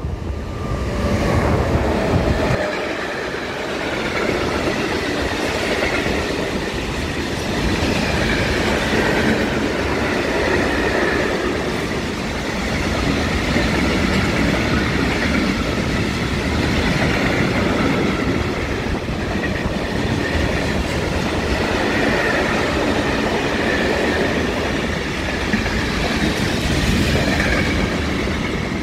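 Freight train rolling past close by, the wheels of its wagons running continuously on the rails, with wind buffeting the microphone.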